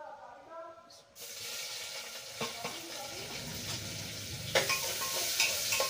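Sliced onions dropped into hot oil in a pressure cooker, sizzling loudly from about a second in, with a few knocks of a spoon against the pot as they are stirred.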